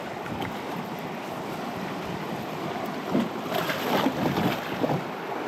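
Creek water rushing steadily as a small inflatable raft floats down a riffle, with louder, irregular splashing from about three seconds in.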